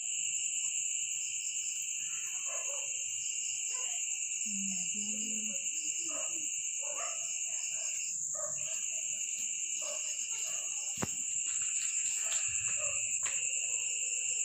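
Night-time chorus of crickets, a steady high-pitched trilling at two pitches, with a few faint scattered sounds lower down.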